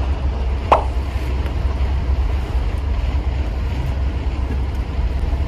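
Steady low rumble of a moving commuter train, heard from inside the passenger car, with one short click about a second in.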